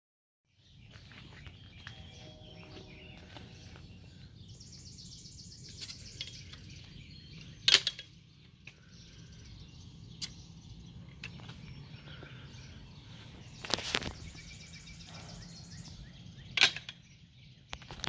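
Sharp metallic clacks of a plunger-type pool gate latch and a chain-link gate being worked: the loudest about eight seconds in, two more a little after the middle and near the end, with lighter clicks between, over a steady low outdoor hum.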